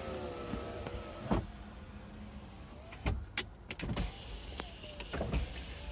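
Lincoln Town Car power window motor whirring, dying away about a second in, followed by several sharp clicks from the door switch panel.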